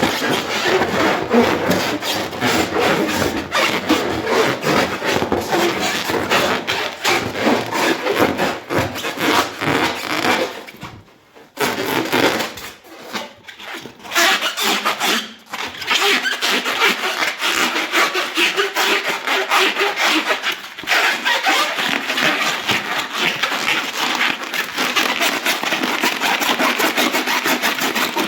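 Hands rubbing an inflated rubber balloon: continuous rapid rubbing strokes. There is a pause of about a second around eleven seconds in, and a few short breaks just after.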